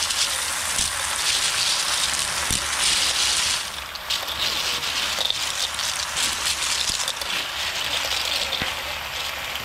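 A steady hiss, with a few sharp clicks of snail shells landing in a steel wok as handfuls are dropped in from a plastic colander.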